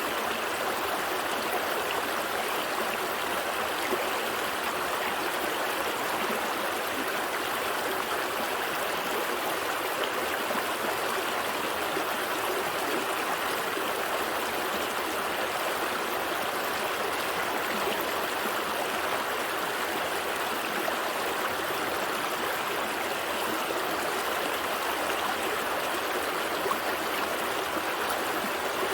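A small stream flowing steadily over rocks, a constant rushing and gurgling of water.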